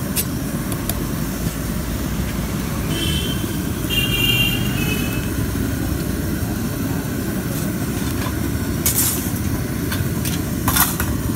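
A steady low rumble of street background noise. A short high ringing tone comes twice, about three and four seconds in, and two sharp clicks come near the end.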